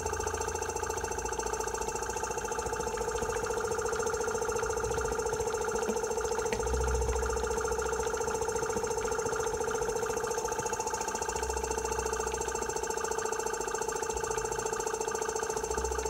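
Small electric air compressor running with a steady whine, blowing air through jars of petrol and water to make the fuel vapour for a gas burner. A low rumble comes and goes every few seconds.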